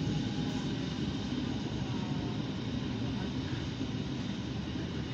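ALn668 diesel railcar running at speed, heard from on board: a steady, dense engine drone and running rumble.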